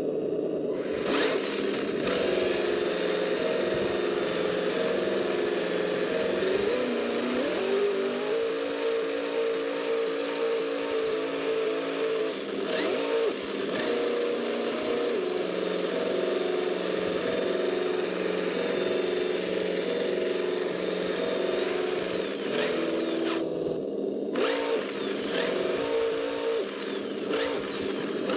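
Electronic engine-sound simulator in a 1/10 Kyosho Alpine GT4 RC car playing a synthetic engine note through a small speaker, stepping up and down in pitch as the throttle is worked. A thin high electric-motor whine rises and falls over it.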